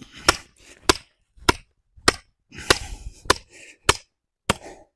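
Wooden stake being driven into the ground by hammer blows: eight sharp strikes, evenly spaced a little over half a second apart.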